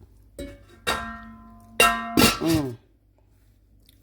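Metal clanging twice, each hit ringing on and fading, followed by a brief vocal exclamation.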